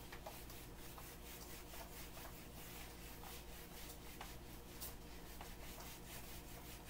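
Handheld whiteboard eraser wiping a whiteboard clean: a faint, quick series of rubbing strokes.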